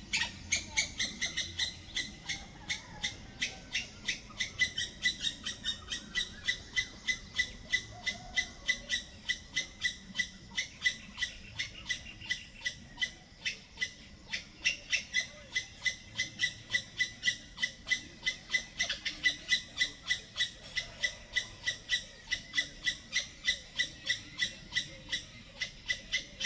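Squirrel calling in a steady, rapid series of short, sharp chirps, about four a second.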